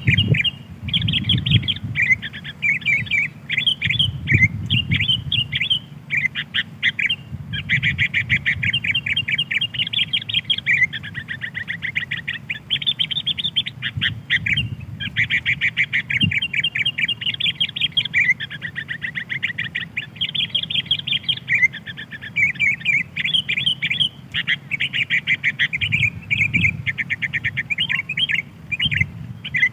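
Sooty-headed bulbuls calling without pause: dense, fast chirps and chattering trills, with a low hum underneath.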